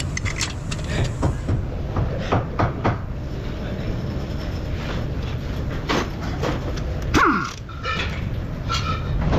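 Scattered clicks and knocks, like metal tools being handled, over a steady low hum, with a brief falling squeal about seven seconds in.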